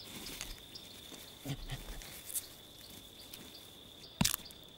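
Chimpanzees at stone nut-cracking: a single sharp knock of stone on nut near the end, and a few brief soft chimpanzee calls about a second and a half in, over a steady high insect drone.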